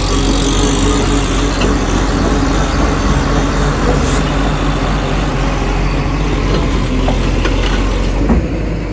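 Diesel engine of a JCB NXT JS 205 tracked excavator running steadily, easing a little near the end.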